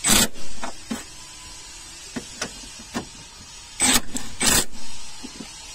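Cordless impact wrench run in three short bursts, tightening nuts on a car's cowl panel: once at the start, then twice about half a second apart near the four-second mark. Light clicks of the socket and nut come between the bursts.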